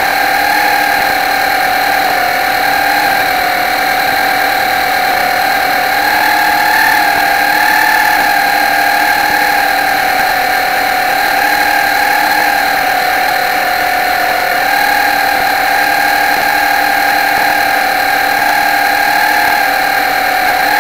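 Motor of the radio-controlled model boat Pilot 24 running at a steady high whine that wavers slightly in pitch as it cruises.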